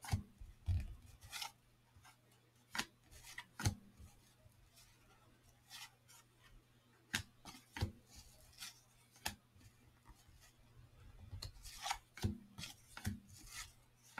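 Cardboard baseball cards being flipped through by hand: short, dry rubbing snaps as each card slides off the stack, at irregular intervals of roughly a second, coming closer together near the end.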